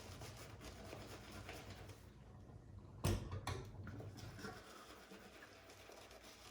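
Shaving brush working soap into a lather, a faint, uneven rubbing with two short knocks about halfway through.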